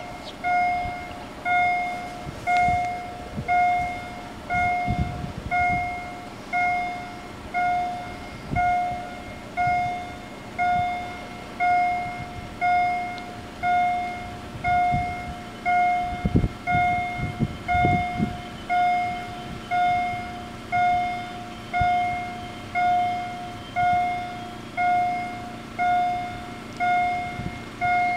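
Level-crossing warning bell ringing about once a second, each strike ringing out and fading before the next, while the crossing is closed for an approaching train.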